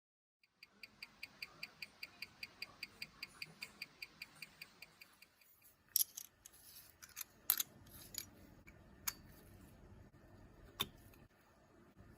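Mechanical wristwatch movement ticking close to the microphone, about five even ticks a second, which stops about five seconds in. Then come a handful of irregular sharp clicks, louder than the ticking, from the watch or tools being handled.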